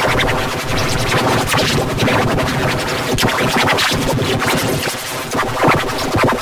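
Cartoon soundtrack music warped by audio effects into a loud, scratchy, choppy mix.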